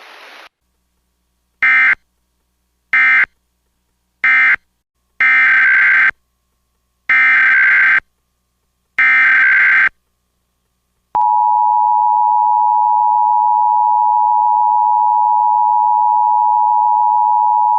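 Emergency Alert System SAME digital data bursts: three short end-of-message bursts, then three longer header bursts of shrill warbling data tones. About a second after them, the steady two-tone EAS attention signal starts and holds, marking the start of a new alert.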